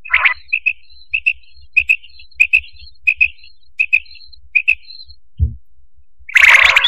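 Quail (batair) calling: a short, sharp double note repeated about every two-thirds of a second, from a call recording of the kind played to lure quail for hunting. A single low thump comes about five seconds in, and loud music cuts in near the end.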